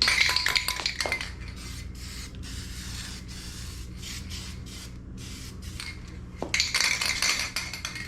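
Aerosol spray-paint can hissing in two bursts, one at the start and a longer one near the end, with the metal mixing ball clinking inside the can between them. A steady low hum runs underneath.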